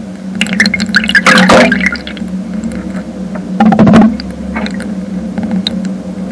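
Underwater sound picked up by a homemade hydrophone: a steady low hum with spells of crackling and clicking, one starting about half a second in and another just before four seconds.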